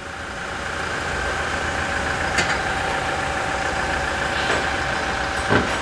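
A machine running steadily, an engine-like hum with a low rumble, building over the first second, with three short light clicks as the mechanic works under the truck.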